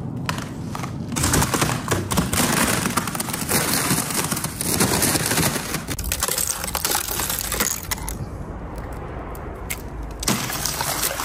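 Thin river ice crackling and clinking as it is handled: a dense run of crisp cracks and clicks that eases off for a couple of seconds near the end, then picks up again.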